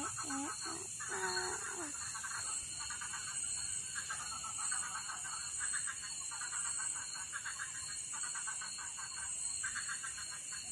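Night chorus of frogs and insects: a few pitched calls that bend in pitch in the first two seconds, then short pulsed trills repeating about once a second, over a steady high insect drone.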